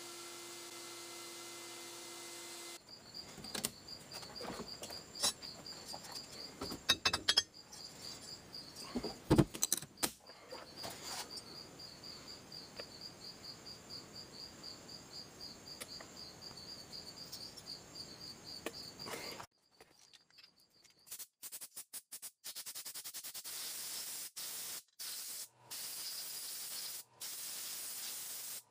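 A cricket chirping in an even, rapidly pulsing trill, over scattered clinks and knocks. Near the end the sound cuts to a steady hiss that starts and stops several times.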